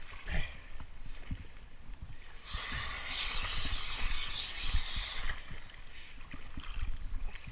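Water splashing and sloshing against a dive float and a diver's gear at the surface, with low knocks throughout. A loud, even splashing hiss starts about two and a half seconds in and lasts about three seconds.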